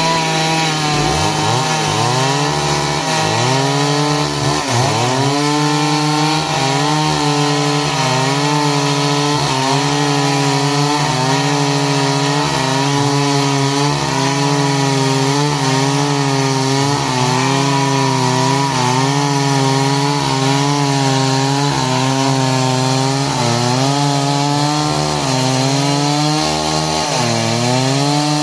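Stihl MS 382 two-stroke chainsaw cutting wood at high revs. Its engine pitch keeps dipping and recovering every second or two as the chain bites into the log.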